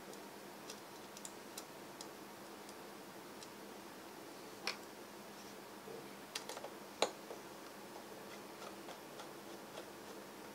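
Faint, scattered light clicks and taps of a tiny M.2 retaining screw and a precision screwdriver being handled as the screw is driven into an M.2-to-SATA adapter board, with a few sharper clicks around the middle.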